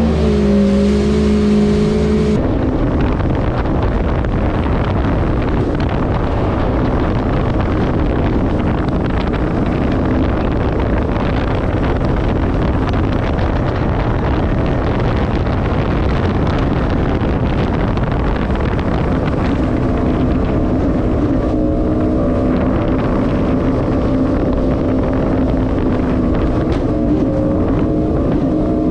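Jet ski engine running steadily at speed, a held engine drone mixed with a heavy rush of wind and water spray.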